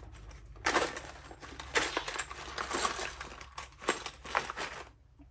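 Loose fired 10 mm pistol brass cases jingling and clinking against each other inside a plastic bag as it is handled and shaken, with the bag rustling. It starts under a second in and stops shortly before the end.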